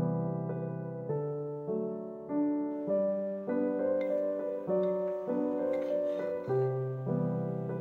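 Background piano music, a new chord or note struck about every half second and left to ring.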